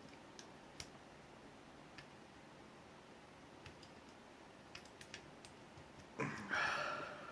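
Faint, scattered clicks of lock picks and a tension tool working the pins in the cylinder of an ABUS 83AL/45 padlock. A louder, longer noisy sound comes about six seconds in.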